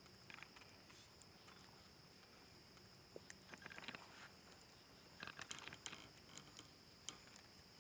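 Near silence: faint scattered ticks and rustles over a steady thin high tone.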